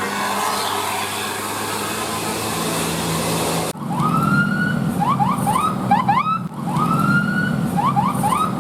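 A heavy vehicle's engine runs with road noise for the first few seconds. After an abrupt change, an electronic siren sounds twice in the same pattern, each time a long rising wail followed by several quick rising yelps, with an engine running underneath.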